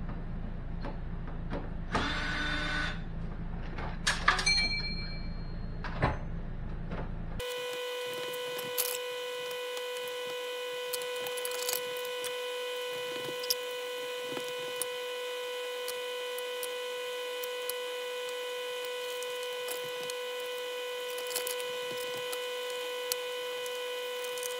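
Cordless drill-driver running in short bursts on the screws of a ceiling light fixture. About seven seconds in, the sound switches abruptly to a steady high-pitched whine of several tones with a few faint clicks.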